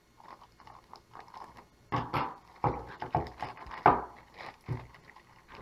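Thin clear plastic toy bag crinkling and rustling as it is handled and pulled open by hand. It is faint at first, then comes as a run of irregular crackles from about two seconds in.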